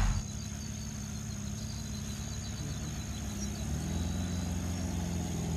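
Car engine running steadily as the car approaches through mud and standing water. Its note grows louder and rises a little about four seconds in.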